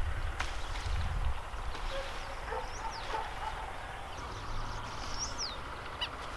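Birds chirping and calling: a few short whistled glides and, near the end, a quick run of chirps. Low wind rumble on the microphone is heaviest in the first second or so.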